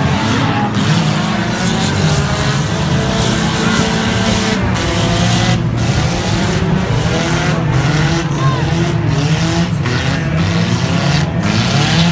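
Several 1500cc banger racing cars' engines running and revving together, many pitches rising and falling at once over a loud low drone.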